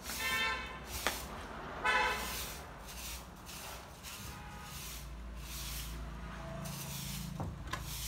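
Long-handled soft broom sweeping a tiled yard: a bristle swish on the tiles about once a second. In the first two seconds two short pitched tones sound over it, and from about halfway a low engine hum comes in underneath.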